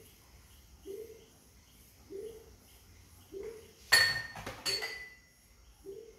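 Glass clinking twice, sharp and ringing, as glass containers knock together about four seconds in. Under it, a faint short chirp repeats about every second and a quarter.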